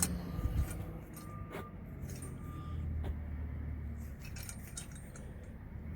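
Light metal clicks and taps as a bricklayer's steel top clamp is hooked onto a profile and adjusted, over a faint low engine hum.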